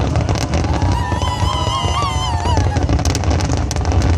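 Fireworks crackling and booming over loud music played for the show. A wavering melody note is held for about a second and a half in the middle.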